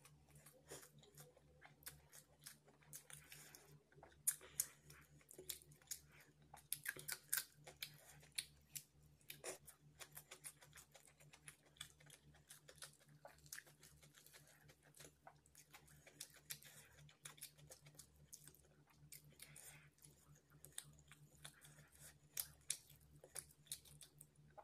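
Close-up eating sounds of a man eating chicken biryani by hand: chewing and wet mouth smacks, heard as many quick small clicks, denser in stretches. A faint steady low hum runs underneath.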